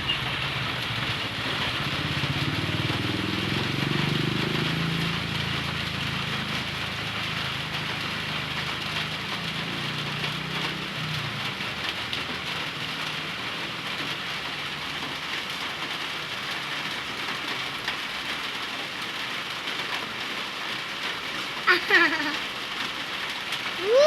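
Steady hiss of falling water, with a low rumble underneath that fades out about halfway through. A short voice is heard near the end.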